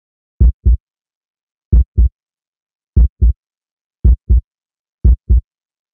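Heartbeat sound effect: five deep double thumps, lub-dub, about one every 1.2 seconds, with silence between.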